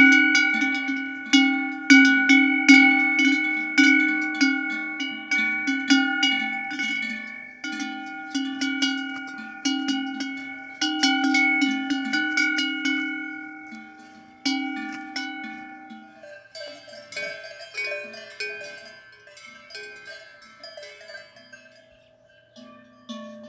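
Large cowbell on a grazing cow's leather collar clanking irregularly as the cow moves its head. Each strike rings on and fades before the next. About two-thirds of the way through, the loud clanging gives way to a quieter, higher-pitched bell ringing.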